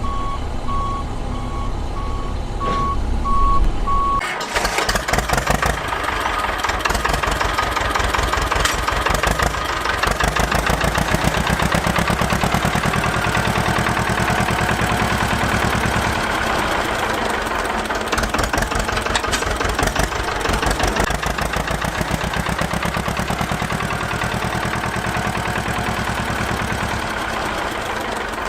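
Reversing beeper sounding in an even series of beeps over a low rumble. About four seconds in, a tractor engine starts and runs with a fast, steady knock.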